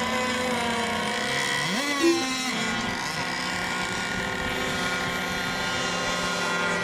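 Several radio-controlled race boat motors running at once with a steady high whine, one of them revving up sharply about two seconds in.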